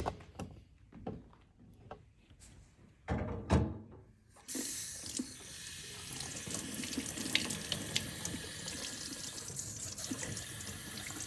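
A few knocks of plastic being handled, then about four and a half seconds in a tap is turned on and water runs steadily through the dishwasher silverware rack's spray nozzles, a flow test for blocked holes.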